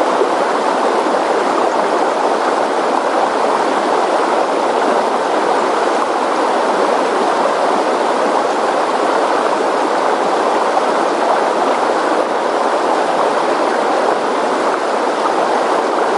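Floodwater rushing in a swollen river: a loud, steady rush of water.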